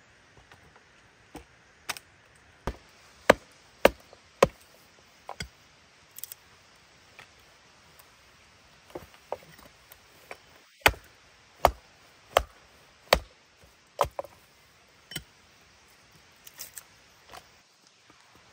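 Wood being chopped: a run of sharp strikes, about one every two-thirds of a second at their steadiest, with a short lull in the middle.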